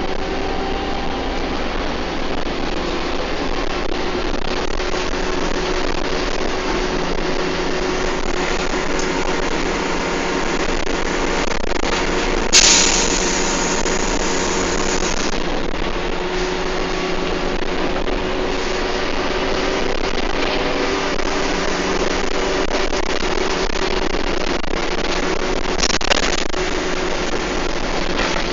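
A bus engine and drivetrain running steadily under way, heard from inside the bus. About halfway through, a sudden loud hiss of air starts and fades over about three seconds. A shorter hiss comes near the end.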